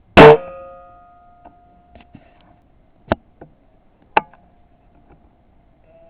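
A single shot from a .22 Weihrauch HW97K spring-piston underlever air rifle: a sharp crack with a ringing spring twang that fades over about a second. Two sharp clicks follow, about three and four seconds in.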